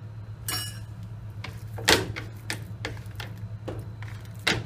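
Hands rubbing ghee onto a yeast dough and patting it in a plastic bowl: a handful of irregular soft slaps and knocks, the loudest about two seconds in.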